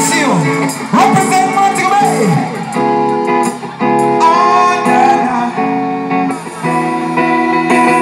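Live reggae band music from a concert sound system, with guitar and singing, heard from within the crowd.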